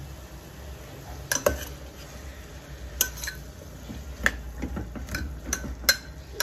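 A metal spoon stirring vegetables being sautéed in a pressure cooker pot, clinking and scraping against the pot's sides in a series of irregular sharp knocks over a steady low hum.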